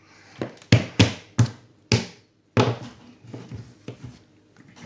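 A series of hard knocks and thumps, about five in the first three seconds and softer ones after, as toy figures are handled and knocked against a hard surface.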